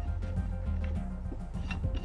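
Background music with a steady bass line and light percussive ticks.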